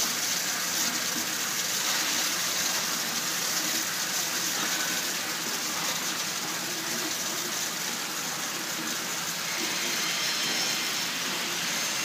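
Water spray bars jetting inside the Gekko InLine Spinner's bowl as it turns in reverse, a steady hissing gush. This is the rinse stage that washes out the concentrate after discharge.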